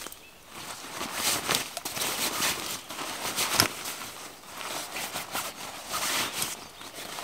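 Hammock fabric rustling and crinkling as it is stuffed by hand into its stuff sack, in irregular handfuls, with one sharper rustle a little past the middle.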